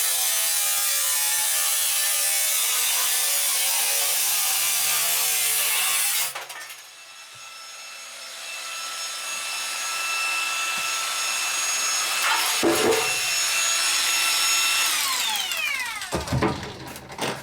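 A handheld power tool cutting into the stainless-steel drum of a drum washing machine. It stops cutting suddenly about six seconds in, then runs free with a steady whine that falls in pitch as it winds down near the end. A few knocks follow.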